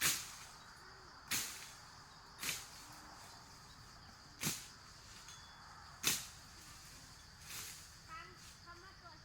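A series of short, sharp swishing strokes, six in about eight seconds at uneven spacing, each fading quickly, over a faint steady high-pitched whine.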